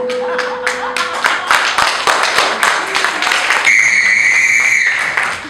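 Audience applause breaking out: scattered single claps that quickly thicken into steady clapping. A low held note of the show's music fades out in the first second, and a held high note sounds over the clapping about two-thirds of the way through.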